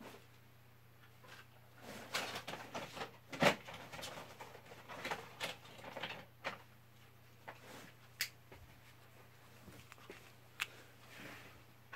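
Irregular light clicks, knocks and rustling of handling, thickest a few seconds in and then thinning to a few single clicks, over a faint steady low hum.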